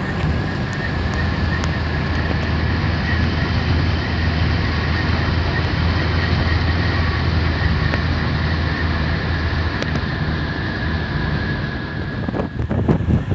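Road and engine noise inside a moving car's cabin: a steady low drone with a faint steady whine above it. Near the end it changes to a rougher, uneven noise.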